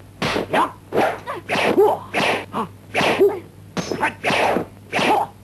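Kung fu film fight sound effects: a fast run of punch and block hits, about two a second, mixed with the fighters' short sharp shouts and grunts.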